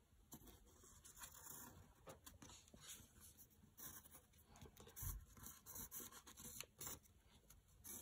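Faint scratching of a pencil tracing around a cut-out letter stencil on paper, in short irregular strokes, with a soft bump about five seconds in.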